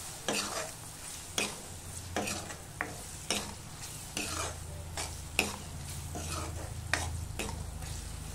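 Metal spoon stirring and scraping a tomato-and-spice masala frying in oil in a metal kadhai, the spoon scraping against the pan about once or twice a second over a soft sizzle. The masala is being sautéed with turmeric, coriander powder and salt.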